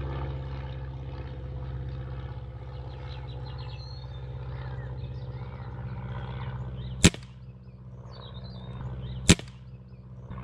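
Two sharp air rifle shots, the first about seven seconds in and the second a little over two seconds later, over a steady low engine-like hum.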